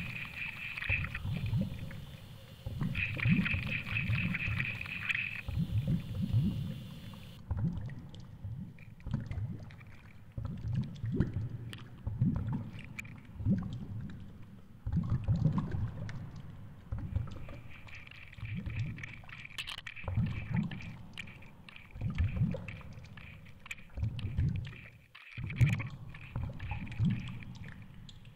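Muffled underwater water noise rushing over a lure-mounted camera's housing, surging in low pulses every second or two, with a faint high whine at times.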